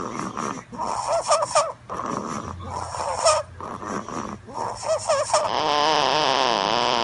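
A sleeping baby snoring: squeaky, wavering snores repeating about every two seconds. Near the end a longer, louder wavering sound takes over.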